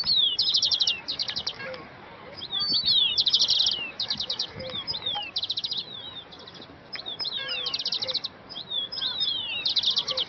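Songbirds chirping and singing: fast trills of rapidly repeated high notes alternating with short downward-sliding whistles, coming again and again.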